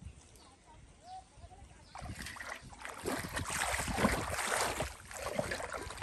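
Shallow muddy water splashing and sloshing as someone wades and churns it with their hands while groping for a fish. It starts about two seconds in and is loudest near the middle.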